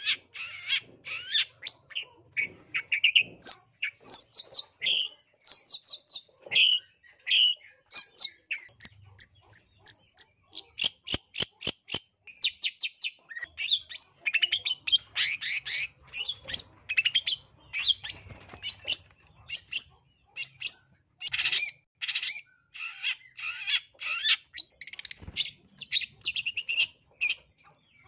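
A caged long-tailed shrike (cendet) singing in full voice: a fast, unbroken stream of short, varied chattering, chipping and squeaky notes, the song full of mimicked calls (isian). A short run of sharp ticks comes near the middle.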